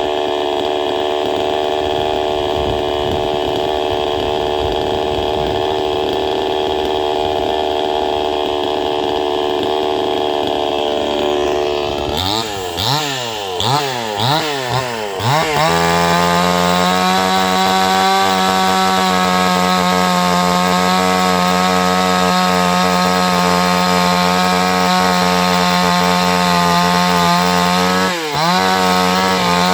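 Chainsaw's two-stroke engine running at a steady speed, then revved sharply about four times and held at a higher, steady pitch while cutting into the log. Near the end the engine speed dips briefly and comes straight back up.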